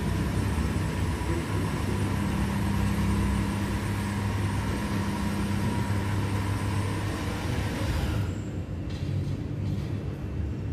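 Car running with a steady low hum and hiss. Most of the hiss drops away about eight seconds in, leaving a quieter hum.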